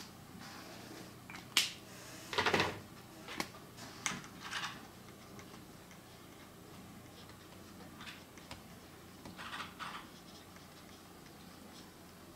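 Brush pen strokes and a hand moving across paper. A sharp tick comes about a second and a half in, then a cluster of short scratchy rustles over the next few seconds, and one more a little before ten seconds in, over a faint steady hiss.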